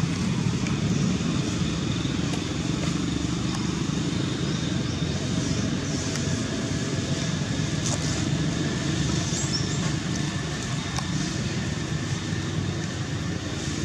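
Steady low rumble of motor-vehicle noise, with faint clicks above it.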